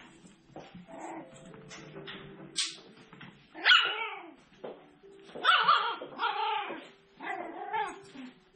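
Seven-week-old poodle puppies yipping and whining while they play-fight. There is one sharp yelp about three and a half seconds in, then a few longer whiny calls between about five and a half and eight seconds.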